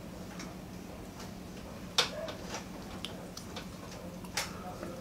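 Close-miked eating: a mouthful of rice and kangkong chewed with sharp, irregular lip smacks and wet mouth clicks, the loudest about two seconds in and another near the end. A steady low hum runs underneath.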